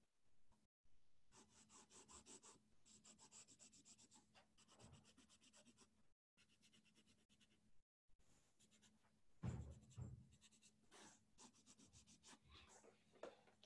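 Faint scratching of a pen or marker drawing on paper, in quick runs of short strokes. A soft low thump about nine and a half seconds in is the loudest sound.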